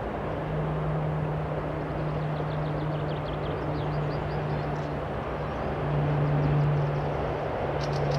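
Passenger train hauled by an EP1M electric locomotive with a TEP70BS diesel locomotive approaching: a steady low hum over a rushing noise, growing a little louder about six seconds in. Small birds chirp faintly partway through.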